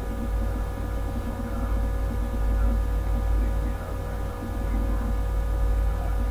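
Steady electrical hum on the recording microphone, strong and low, with several constant higher whining tones above it and a faint rumbling murmur underneath.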